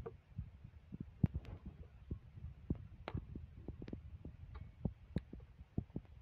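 Cauliflower florets being snapped off the head by hand: irregular crisp snaps among many soft low thuds.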